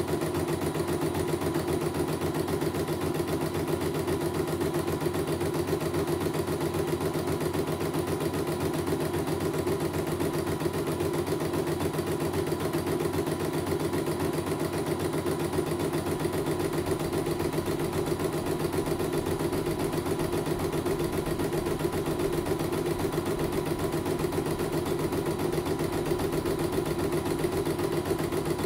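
CNY computerized embroidery machine stitching out a design, a steady fast needle rhythm over the running motor, with no pause.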